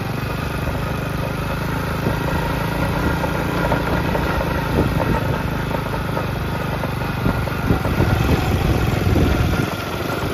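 Small 110cc single-cylinder four-stroke kids' quad engine running under way, pulling an adult across rough grass, with irregular knocks and rattles from about two seconds in as the rig bounces over the bumps. The engine eases off briefly near the end.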